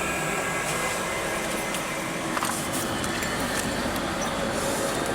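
Steady rushing hum of the International Space Station's cabin ventilation fans and equipment, with a few faint clicks.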